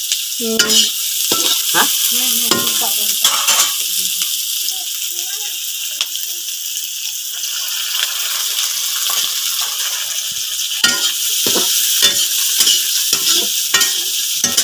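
Sliced onions sizzling as they fry and brown in a wok: a steady hiss, with a metal spatula scraping and knocking against the pan now and then.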